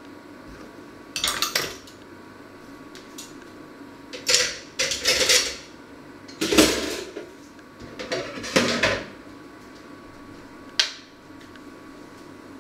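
Metal cutlery and kitchenware clattering as they are picked up and set down, in several short bursts, with one sharp single clack near the end.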